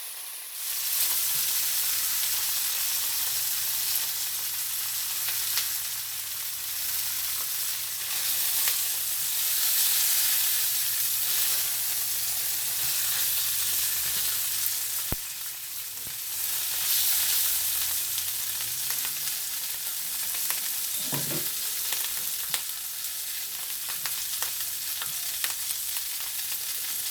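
T-bone steaks searing in a hot pan, sizzling steadily with many small crackles.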